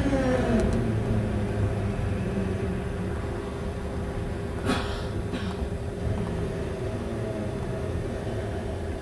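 Tatra T6A5 tram running along the track, heard from on board: the motor whine slides down in pitch in the first second, then settles into a steady hum over the low rumble of the wheels on the rails. There are two short hisses a little past halfway.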